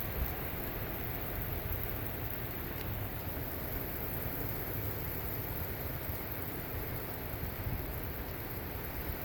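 Heavy thunderstorm rain falling steadily, an even hiss of downpour, with a low, uneven rumble underneath.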